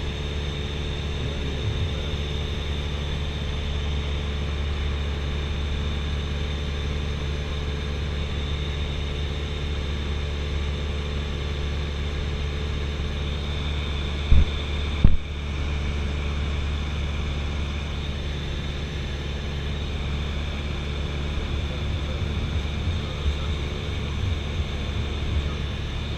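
Steady in-cabin drone of a Cessna 172SP Skyhawk in flight: its four-cylinder Lycoming engine and propeller at a constant power setting, with airflow noise. About halfway through come two brief knocks less than a second apart.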